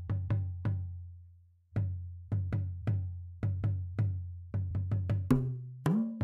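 Background music: a percussion-led instrumental of sharp, quickly decaying struck hits at an uneven beat over a low bass, with a short pause about a second in and a pitched bass line joining after about five seconds.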